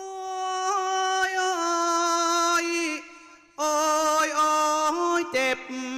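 A single voice singing into a microphone in Thai likay style, drawing out long, wavering vowel notes with no words. It holds one long phrase, stops for a breath about three seconds in, then sings a second phrase full of quick pitch turns.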